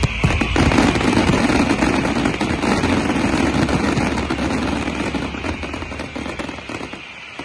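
Fireworks finale barrage: many shells and crackling effects going off at once in rapid, overlapping bangs and crackle. It starts with a sudden loud hit, stays dense for the first few seconds, then dies away toward the end.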